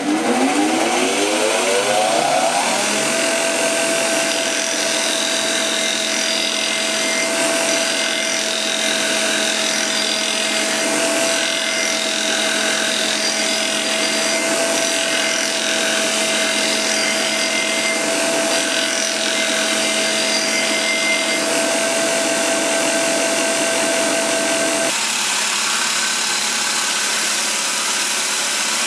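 Belt grinder's motor coming up to speed, its whine rising over the first few seconds, then running steadily while a steel knife blade is ground against the belt on the contact wheel. The steady whine drops out about 25 seconds in, and the grinding carries on.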